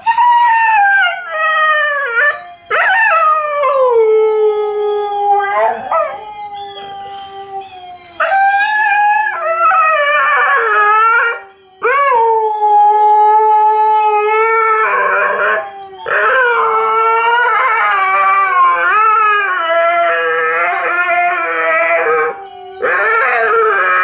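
A large white Malamute-type dog howling and 'talking' in a run of long, wavering calls whose pitch slides up and down, broken by short pauses between phrases.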